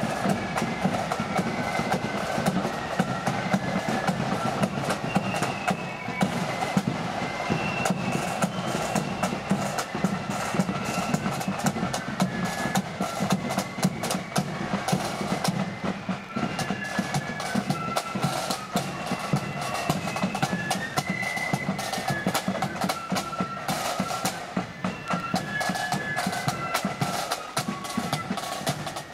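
Blood-and-thunder marching flute band playing: a stepping flute melody over fast, dense snare drumming.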